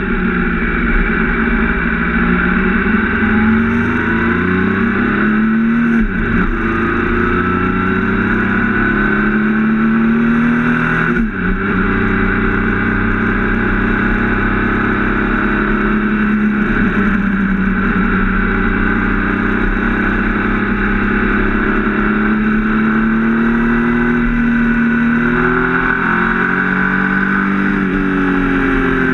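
Triumph Speed Triple RS 1050's three-cylinder engine accelerating hard, its pitch climbing and dropping at upshifts about six and eleven seconds in. It then runs at a steadier pitch and falls away near the end as the bike slows.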